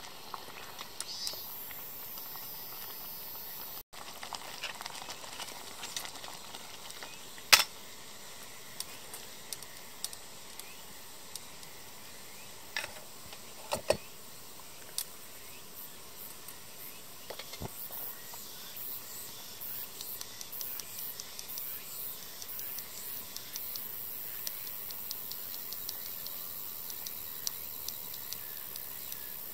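Steady hiss of a small gas canister stove under a simmering pot, with a few sharp knocks of a wooden spoon against the steel pot, the loudest about seven seconds in.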